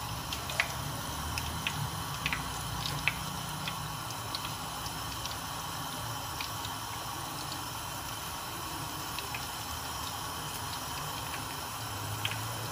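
Pakoras of gram-flour batter deep-frying in hot oil on high heat: a steady sizzle and bubbling, with scattered small pops and crackles as fresh batter is dropped in by hand.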